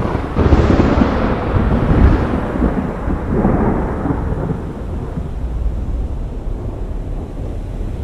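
Thunder: a sudden clap about half a second in, then a long rolling rumble that swells again around three and a half seconds and slowly dies away.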